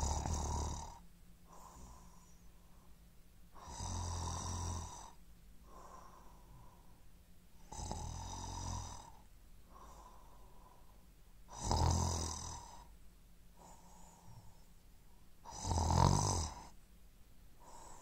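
A man snoring, a long rasping snore about every four seconds, five in all.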